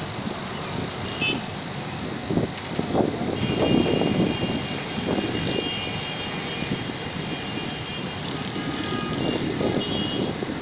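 Steady outdoor rumble over a city, swelling in uneven gusts, with a few thin high tones in the middle.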